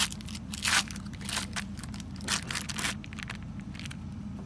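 Foil wrapper of a cream cheese block crinkling and tearing as it is peeled open by hand, in several short bursts over the first three seconds, over a steady low hum.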